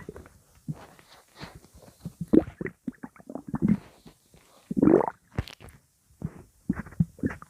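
Stomach growling and gurgling: a run of irregular gurgles and short rumbles, the longest about five seconds in.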